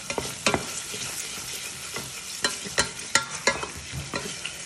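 Ginger, garlic, spring onion and lemongrass sizzling in hot coconut oil while being stirred, a utensil clicking and scraping against the pan two or three times a second.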